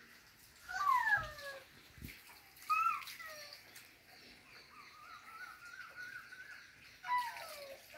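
Bird calls: several short calls that slide down in pitch, and a longer wavering call through the middle.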